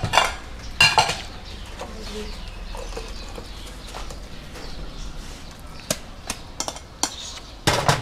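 Ceramic noodle bowls and a wire noodle strainer clinking and knocking against a steel stockpot while a bowl of noodle soup is made: a louder clink about a second in, a few light taps later, and a louder clatter near the end.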